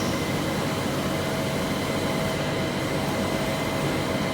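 JohnFord TC-75 CNC lathe running steadily: a constant mechanical hum with a thin, high, even whine over it.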